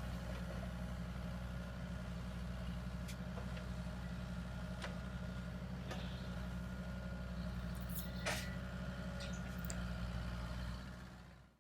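An engine idling steadily, with a few small clicks and one sharper knock about eight seconds in; the engine sound fades out just before the end.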